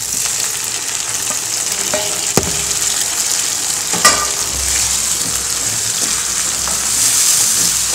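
Chopped tomatoes sizzling in hot oil with fried onions in a metal kadai, a steady hiss as they start to fry. A utensil knocks sharply against the pan twice, about two and four seconds in.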